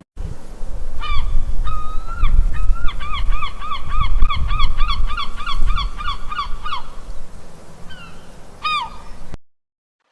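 Geese honking: a few separate honks, then a fast run of about three or four honks a second, and one last honk near the end, over a low rumble; the sound cuts off abruptly.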